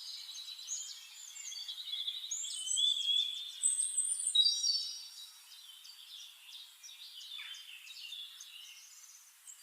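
Several songbirds singing and chirping at once in quick trills and short whistles, busiest and loudest in the first half, then thinning to scattered calls.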